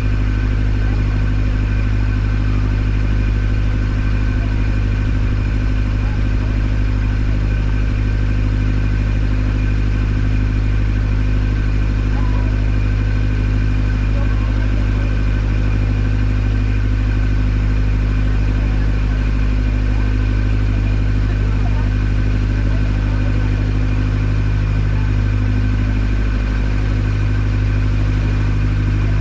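Boat taxi's engine running at a steady speed: a constant low drone with a faint steady whine above it.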